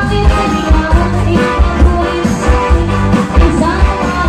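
Live band music in a cha-cha rhythm, with a steady bass beat and a singer's voice over it.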